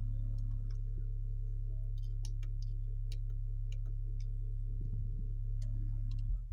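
Repaired Avatar ATU-2000.1D amplifier running on test: a steady low mains-frequency hum with a buzz of overtones, with irregular small clicks and ticks scattered over it.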